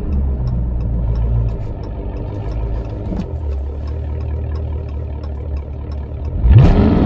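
Dodge Charger Scat Pack's 392 HEMI V8 running low and steady through the exhaust while cruising, then about six and a half seconds in it revs up sharply into hard acceleration, suddenly much louder and rising in pitch.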